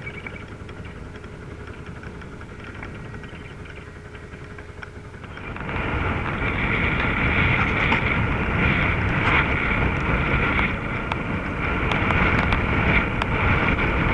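A quiet, steady rush with a faint steady hum aboard a sailing yacht under way. About five and a half seconds in it turns much louder: strong wind buffeting the microphone in a 20–25 knot blow.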